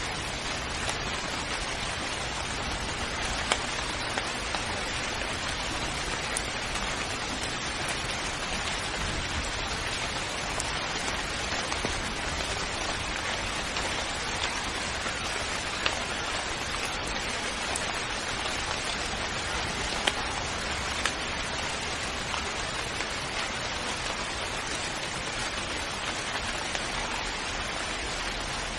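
Steady rain falling, an even hiss with scattered louder drops hitting a surface close by.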